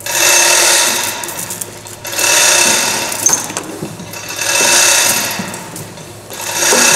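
Manual chain hoist being hauled hand over hand, its chain rattling and its mechanism clicking rapidly in four long pulls about two seconds apart, lifting the top half of a J47 turbojet's compressor case.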